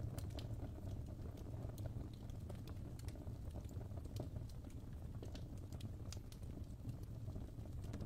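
Wood fire crackling in a fireplace: irregular sharp pops and snaps, several a second, over a steady low rumble.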